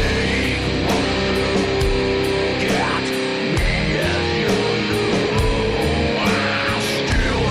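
Rock music with electric guitars over a steady beat.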